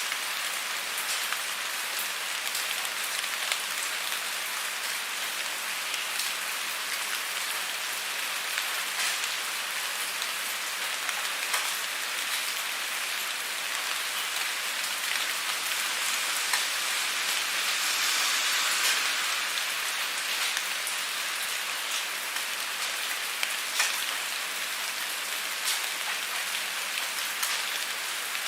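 Steady rain falling, a dense even hiss with single drops ticking sharply now and then; it swells a little louder for a couple of seconds about two-thirds of the way through.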